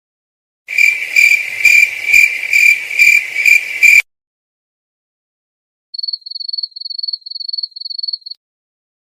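Cricket chirping sound effect, the stock cue for an awkward silence: a loud, shrill chirping at about three chirps a second for some three seconds. After a short silence, a thinner, higher-pitched cricket chirping follows for about two and a half seconds.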